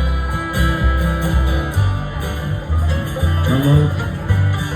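Country band playing an instrumental passage: plucked guitar notes over a bass line that moves from note to note.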